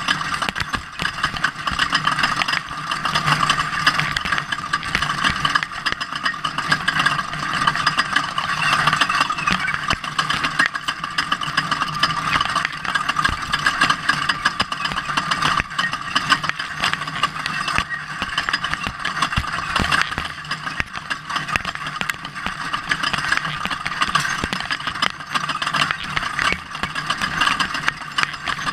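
Ford Ranger off-road race truck's engine running steadily, with a constant rattle and clatter.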